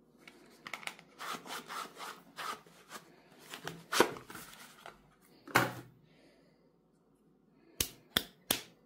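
A small cardboard soap box being handled and opened, with rustling and scraping of the cardboard and the bar of soap sliding out. Near the end come three sharp taps.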